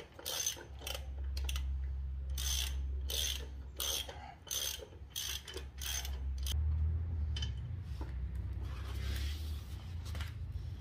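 Ratchet wrench with a spark plug socket on an extension clicking as it backs a spark plug out of a mower engine. The clicks come about twice a second and stop about six and a half seconds in.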